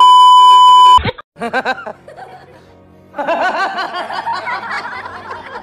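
A loud, steady television test-pattern beep lasts about a second and cuts off sharply. After a short lull, people's voices and laughter come in at about three seconds.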